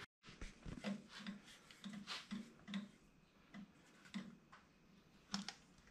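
Faint scattered ticks and light taps from handling a cogged rubber CVT drive belt around the ATV's clutches, with brief low hums in between.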